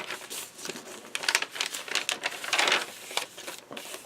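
Paper rustling and crinkling as the pages of a handmade junk journal are turned and handled: an irregular run of soft scrapes and crackles.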